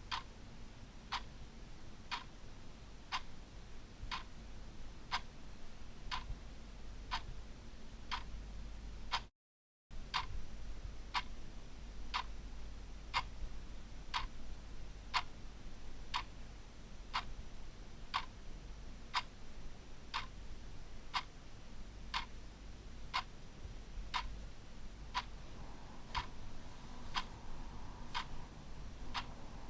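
Ticking clock sound, one sharp tick about every second over a faint low hum, broken by a brief half-second dropout about nine seconds in.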